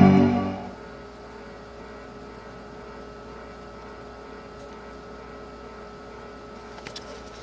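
Power Macintosh 6500's startup chime dying away in the first second, then the computer running with a steady fan hum and a faint held tone. Near the end come a few faint clicks from its Quantum Fireball hard drive, which is not spinning up: the click of death of a failed drive.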